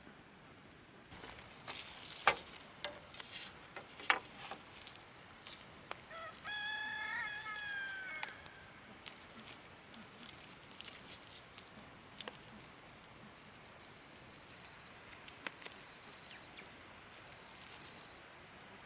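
A rooster crows once, a drawn-out call of about two seconds that falls away at the end, a third of the way in. Scattered sharp clicks and rustling run around it, the loudest a sharp click early on.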